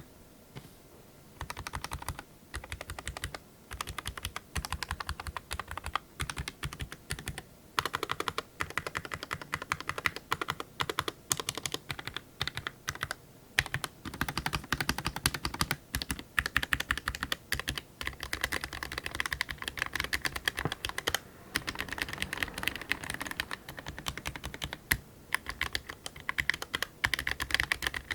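Typing on an Eweadn MK100 mechanical keyboard with white switches: a fast, steady stream of key clicks, with a short pause near the start and a few brief gaps.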